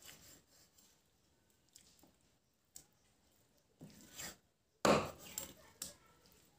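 Large knife chopping raw pork belly on a thick wooden chopping block: a few separate strokes, faint at first, the loudest about five seconds in, followed by two lighter ones.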